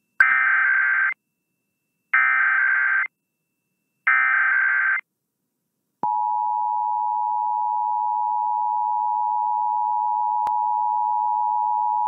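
Emergency Alert System SAME header: three one-second bursts of digital data tones with a buzzy, screeching sound, a second apart. About halfway in, the EAS attention signal (the 853 and 960 Hz two-tone alert) starts and holds steady, the opening of a required monthly test.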